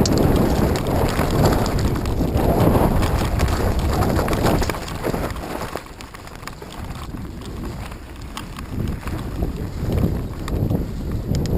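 Wind buffeting the microphone of a GoPro in an open skeleton housing, a gusty low rumble with scattered light clicks. It eases about five seconds in.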